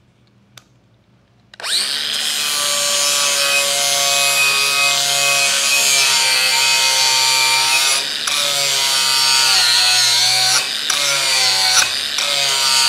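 Angle grinder with a Tiger Paw flap disc starting up about a second and a half in and grinding the galvanized coating off steel grating. It runs steadily with a high whine over the grinding hiss, dipping briefly a few times near the end.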